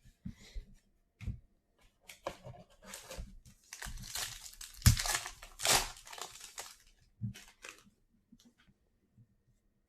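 A trading-card pack wrapper being torn open and crinkled, with the crackle of the wrapper loudest near the middle, followed by light ticks of cards being handled.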